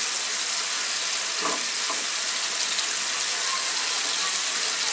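Dried Bombay duck (loitta shutki) with garlic, onion and green chilli sizzling steadily in oil in a flat pan as it is cooked down in its masala, stirred with a plastic slotted spoon.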